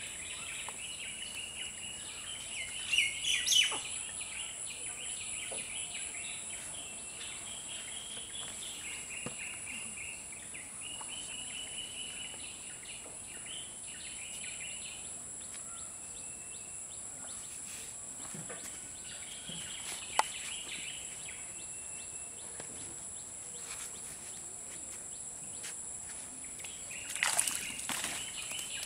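Rural pond-side ambience: small birds chirping and twittering in repeated bursts over a steady high insect drone, with louder calls about three seconds in and near the end.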